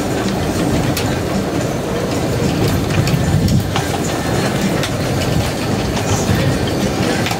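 Storm wind buffeting the microphone as a loud, steady rumble, over choppy harbour water splashing against a floating dock, with scattered small splashes and knocks.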